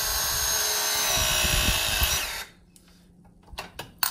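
Milwaukee M18 Force Logic cordless brushless press tool running a crimp cycle on a copper press fitting: a steady motor whine that winds down and stops about two and a half seconds in. A few light clicks follow, one sharper near the end.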